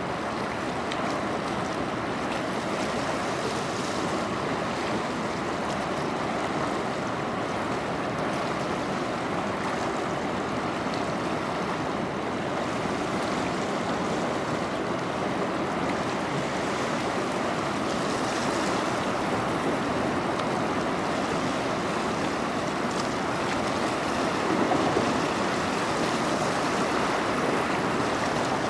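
Steady rushing wash of river water lapping against the shore wall, briefly a little louder near the end.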